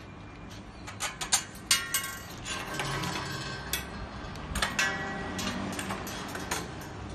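Plastic clothes hangers clicking and clacking against a stainless steel laundry pole and its ring stoppers, in two clusters of sharp knocks, some followed by a short metallic ring.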